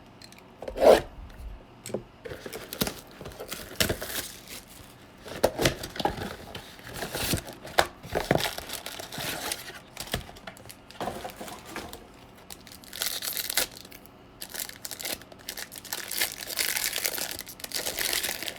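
Baseball card pack wrappers being torn open and crinkled by hand, in irregular rustles and clicks, with longer stretches of crinkling near the end.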